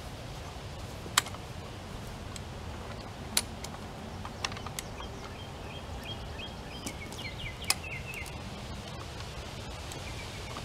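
A lever jack being pumped to pull a fence post: about five sharp metal clicks at irregular intervals as the handle is worked. A bird chirps in a quick series in the second half, over steady outdoor background noise.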